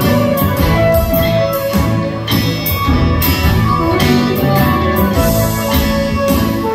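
Live band playing loudly, heard from the audience: guitar, piano, upright bass and drums, with regular drum and cymbal hits over sustained chords.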